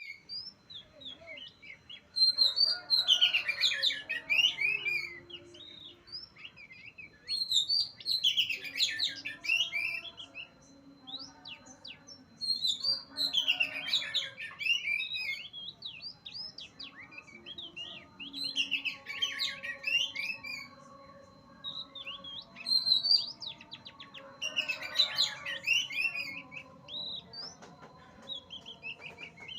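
Oriental magpie-robin (kacer) in full song: loud bursts of rapid, varied whistles and chattering phrases, each lasting two to three seconds and repeated about every five seconds.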